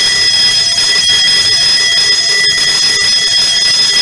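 Fire alarm electric bell ringing loudly and continuously, with a steady metallic ring. It is being sounded from the fire alarm receiver's all-building sounding switch as a test of the newly connected bell circuit.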